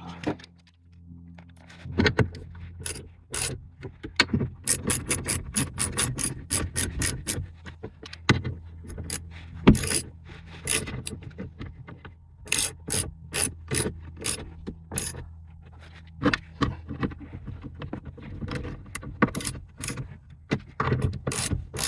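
Hand ratchet wrench clicking in quick bursts, several clicks a second with short pauses between runs, as bolts are run up tight.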